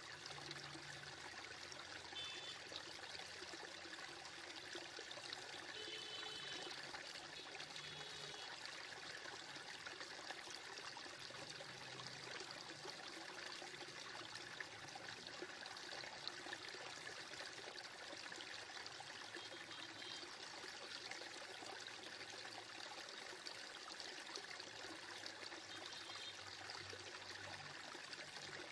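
Chopped shallots and garlic frying in hot oil in a wok, a steady faint sizzle as they cook toward golden brown.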